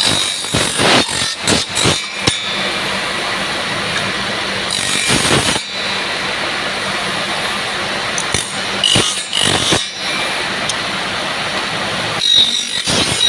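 A power tool working a piece of makha tae hardwood: a steady, noisy run broken by quick sharp knocks and scrapes, which come thickest near the start and near the end.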